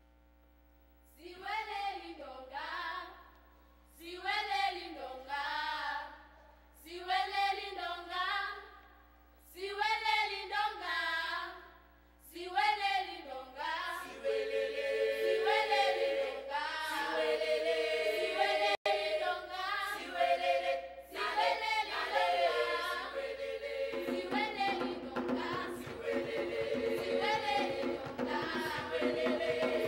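Children's choir singing an African celebration song unaccompanied, first in short phrases of about two seconds with pauses between them, then without a break. About 24 seconds in, djembe hand drums join with a steady beat under the voices.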